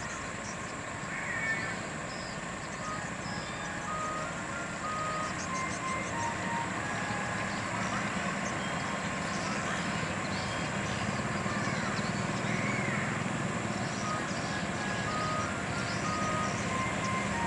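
Scania heavy truck's diesel engine running at low speed as the truck creeps forward, slowly growing louder, with short high-pitched tones sounding on and off above it.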